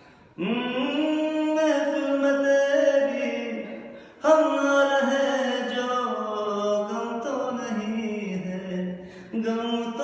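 A man singing unaccompanied in three long phrases, holding drawn-out notes that slide between pitches, with short breaks between the phrases.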